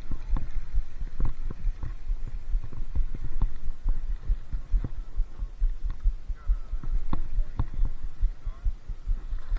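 Irregular low thumping and rubbing on a body-worn camera's microphone as hands work a spinning rod and reel, with scattered light clicks.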